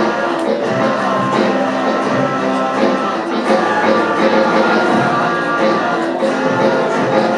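Live rock band playing an instrumental passage, with guitar strumming over the backing.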